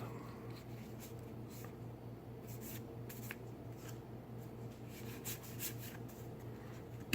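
Magic: The Gathering cards being slid and flipped through by hand: faint rubs and soft ticks of card stock, over a steady low hum.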